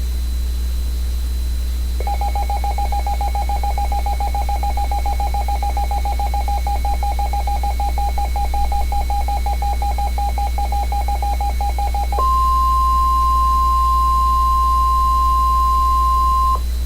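Emergency Alert System two-tone attention signal, a rapidly beating dual-tone buzz, starts about two seconds in and lasts about ten seconds. It then switches to the NOAA Weather Radio 1050 Hz warning alarm tone, a single steady, slightly higher and louder tone that lasts about four seconds and cuts off abruptly. A steady low hum runs underneath.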